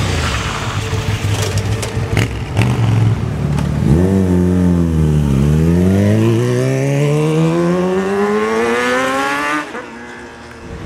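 A Ducati 1198S's L-twin engine rumbles low as the bike rides by, with a few sharp cracks. Then a Kawasaki Ninja ZX-6R's inline-four dips briefly in revs and accelerates hard, its pitch climbing steadily for about four seconds before it cuts off.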